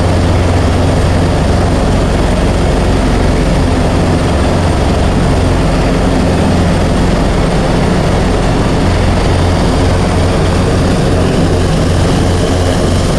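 Helicopter in flight: loud, steady engine and rotor noise with a deep, fast pulsing.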